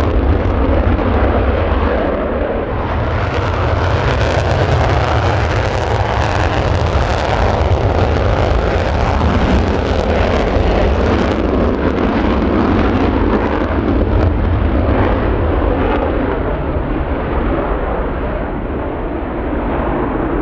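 F-35A Lightning II's single Pratt & Whitney F135 engine in full afterburner on its takeoff roll and climb-out: a loud, continuous deep rumble with a ragged crackle, easing off a little near the end as the jet climbs away.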